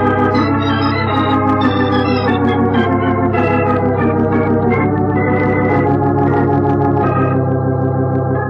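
Organ music bridge marking a scene change: a run of changing notes over a held bass note, settling about seven seconds in into one sustained chord.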